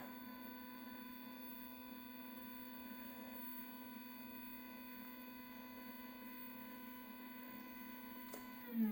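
Stepper motor of an OnStep friction drive slewing a Dobsonian telescope, giving a steady, even-pitched whine with several overtones. Right at the end the pitch falls away as the motor decelerates to a stop.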